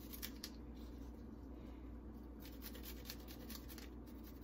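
Garlic clove rubbed on a rasp-style hand grater, making faint, quick scraping strokes. A few strokes come at the start, then a pause of about two seconds, then more strokes.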